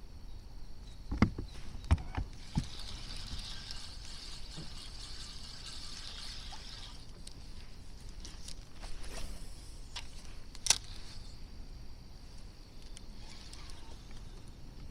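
Knocks and clicks on a fishing kayak's hull, three in quick succession and one more later, with a stretch of hiss in between. Low wind rumble on the microphone runs underneath.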